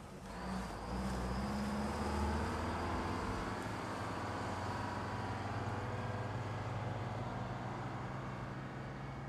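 Detroit Diesel 8V71, a two-stroke V8 diesel, in a 1968 MCI-5A bus, running steadily as the bus pulls away, the sound fading slowly over the last few seconds.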